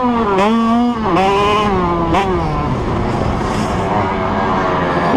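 85cc two-stroke motocross bike engine revving under throttle on a dirt track. The pitch rises and falls with the throttle, drops about a second in and again just after two seconds, then runs rougher and less even to the end.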